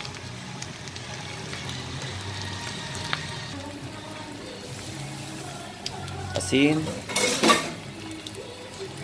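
Shredded bamboo shoots and pork sizzling in a wok while a wooden spatula stirs and scrapes against the pan. About seven seconds in comes a brief, louder rattling burst as salt is shaken over the food.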